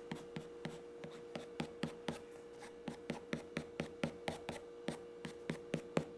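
White Prismacolor colored pencil drawing quick short diagonal strokes on paper, each stroke a sharp tick, about three or four a second. A faint steady hum runs underneath.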